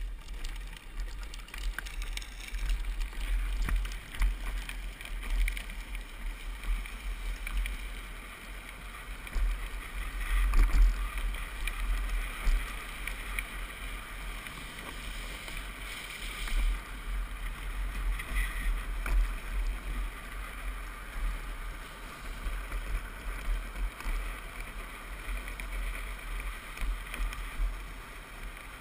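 Wind buffeting the microphone of a helmet-mounted camera on a drift trike running downhill, over a steady rumble and scrape of the trike's hard plastic-sleeved rear wheels rolling and sliding on asphalt. The noise comes and goes with speed and is loudest about ten seconds in.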